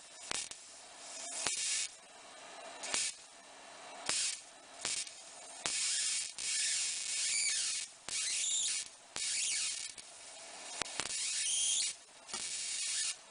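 High-voltage arc from a flyback transformer driven by a single KT840A transistor, hissing in repeated stretches of about a second. Short gaps separate the stretches, with sharp clicks as the arc breaks and strikes again.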